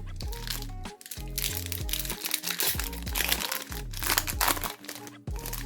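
Foil wrapper of a Pokémon TCG Fusion Strike booster pack crinkling as it is handled and opened, loudest in two spells midway and near the end. Background music with a steady bass line plays throughout.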